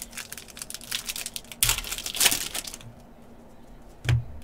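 Panini Contenders basketball foil pack wrapper crinkling as it is torn open by hand, loudest about halfway through, then stopping. A single soft knock near the end.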